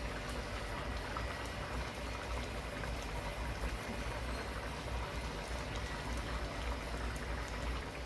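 Fish curry simmering in a karahi, the reducing gravy bubbling and crackling steadily as the water cooks off and the oil rises to the surface. A steady low hum runs underneath.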